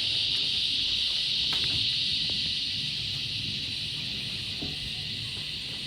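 Australian bush cicadas calling in a continuous high-pitched buzz, easing slightly toward the end.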